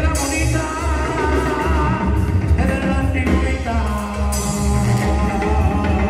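Live band music with a lead singer over heavy, pulsing bass, loud throughout.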